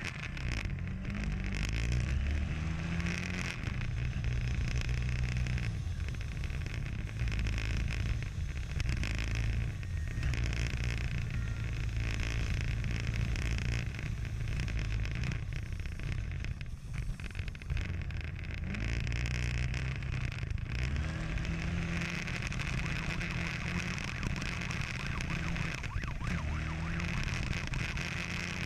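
Motorcycle engine revving hard at speed, its pitch climbing again and again as it pulls through the gears, with wind rushing over the microphone.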